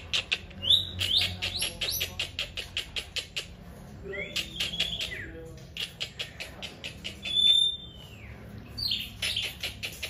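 Velvet-fronted nuthatch (rambatan) calling in fast runs of sharp, dry chattering notes, several a second, coming in three bursts with short pauses between. One clear falling whistle comes about seven seconds in.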